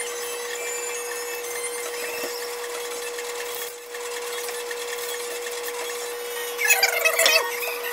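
Bark being scraped and shaved off a dry tree limb with a hand blade: a steady rasping scrape, with a run of louder, squeaky scrapes near the end.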